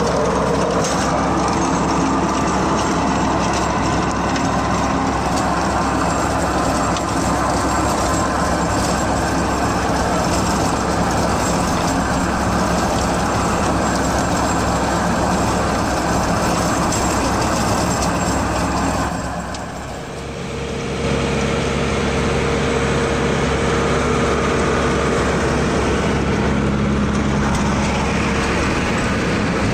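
Farmtrac 6065 tractor's diesel engine running under load while its PTO-driven rotary tiller churns through the soil, a loud, steady machine noise. The noise dips briefly about two-thirds of the way through, then carries on as a steadier hum with a clear whine.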